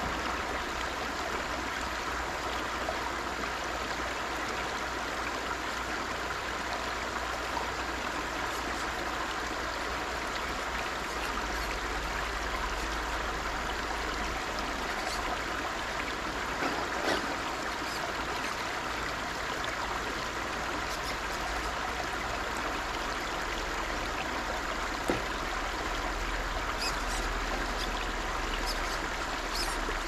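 River water flowing with a steady rush, with a few faint clicks now and then.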